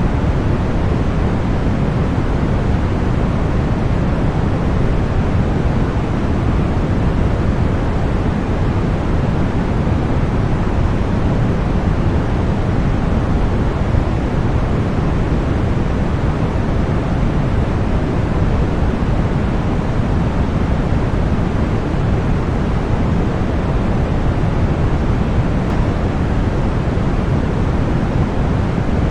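Continuous synthetic deep white noise: a steady, unchanging rush with most of its weight in the low end, thinning out toward the top.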